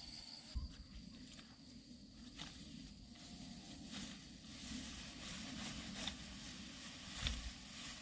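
Faint rustling with a few light clicks and taps over a low rumble.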